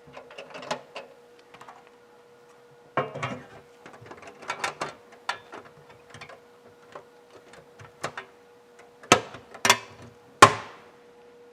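Bottom tray of a MAG-200 dust collector being handled and fitted back into place: irregular scrapes and light clicks, then three sharp knocks near the end, the last one ringing briefly. A faint steady hum runs underneath.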